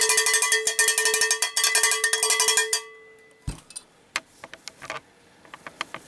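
Cowbell struck in a rapid run of strikes, its metal ringing at a steady pitch. The playing stops about three seconds in and the ring dies away, followed by a thump and a few light knocks.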